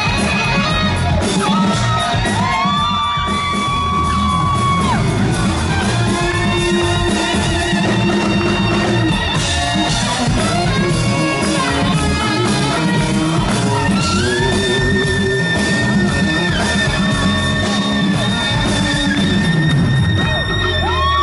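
Live rock band playing, with a saxophone solo of long held notes that scoop up into pitch over electric guitar, bass and drums.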